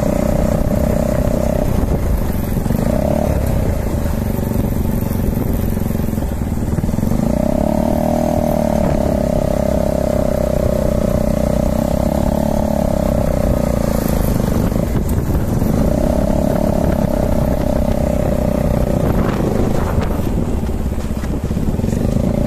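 A motorcycle riding along a dirt track, its engine note swelling and easing off several times over a steady rumble.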